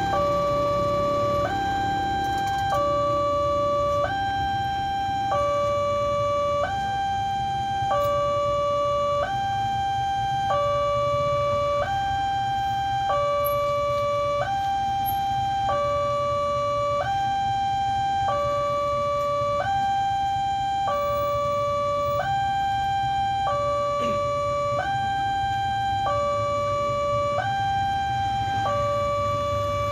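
Electronic level-crossing warning alarm sounding a steady two-tone chime, switching back and forth between a lower and a higher note about every two-thirds of a second: the warning that a train is approaching and the barriers are closing.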